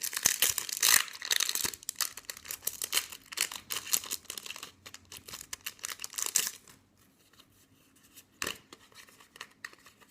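Foil wrapper of a Yu-Gi-Oh booster pack being torn open and crinkled: dense crackling for about six and a half seconds, then quieter, with one sharp rustle about eight and a half seconds in.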